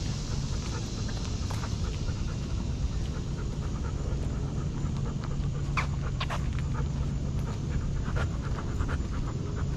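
Dog panting steadily as it walks, picked up close by a camera strapped to its back harness. A few sharp clicks come through in the second half.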